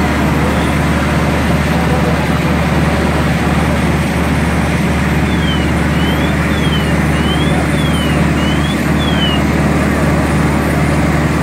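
Fire truck's diesel engine running at a steady pitch under a constant rushing hiss. About five seconds in, a faint high tone glides down and up seven times, like a distant siren.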